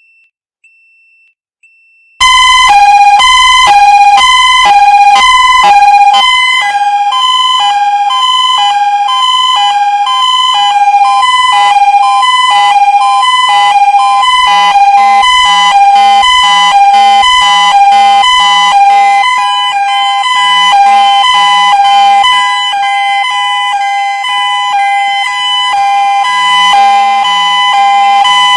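System Sensor fire alarm sounders going off together, alternating between two pitches about twice a second and drifting slightly out of step. The alarm starts suddenly about two seconds in, after a few faint short beeps.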